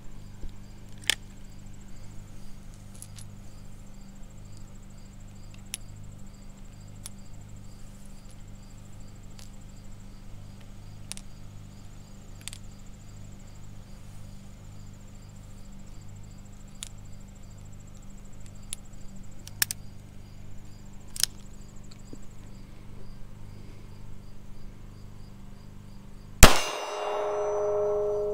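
Light metallic clicks of a snub-nose Smith & Wesson .38 revolver being handled and loaded, over steadily chirping crickets. Near the end a single loud revolver shot, followed by a steel target ringing with a steady clang.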